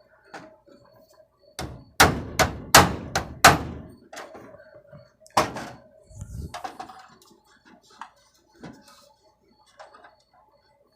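Hammer blows on a piece of scrap aluminium used as a punch, knocking small round-head nails down through the thin sheet-metal bottom of a tool-box drawer: a quick run of about five sharp strikes starting about two seconds in, one more strike a second and a half later, then lighter knocks and scrapes.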